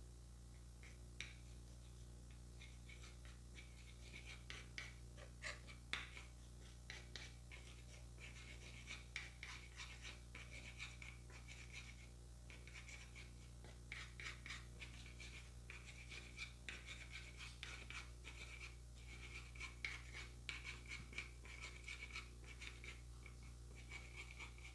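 Faint, close scratching and rubbing as a barber works on skin, with many irregular small scratches and clicks over a steady low hum.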